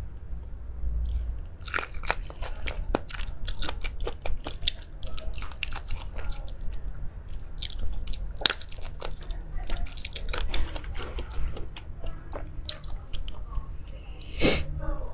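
Close-up eating sounds: a person biting and chewing crunchy food, with many sharp crunches coming thick and fast after the first couple of seconds and a loud cluster near the end.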